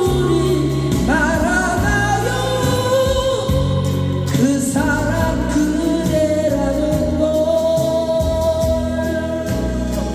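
Singing over backing music with sustained bass notes, the voice holding one long note with vibrato through the second half.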